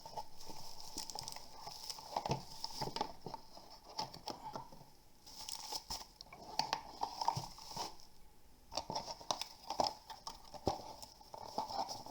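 Keyboard box and its packaging being opened and handled: crinkling and rustling with irregular taps and knocks.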